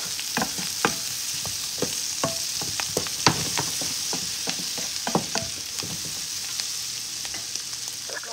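Brussels sprouts sizzling in bacon fat and butter in a frying pan, stirred with a wooden spoon: a steady hiss with irregular sharp knocks of the spoon and sprouts against the pan.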